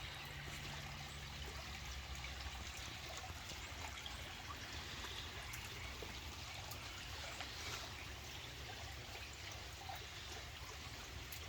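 Steady rain falling, with water trickling and running off, an even patter with no letup.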